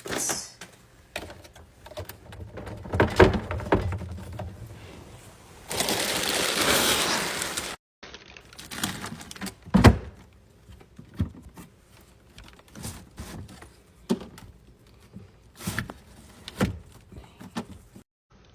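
Household cleaning and handling noises in a kitchen: scattered knocks, clicks and clatter of items being moved, a steady hiss lasting about two seconds around six seconds in, and one heavy thump about ten seconds in.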